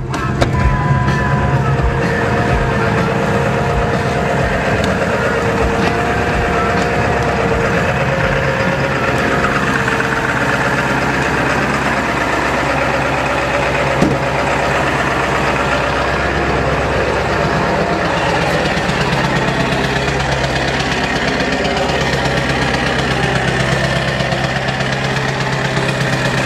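Diesel truck engine idling steadily, with a single short knock about fourteen seconds in.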